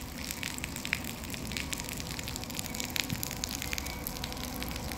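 Rain falling, with scattered sharp ticks of raindrops striking close by.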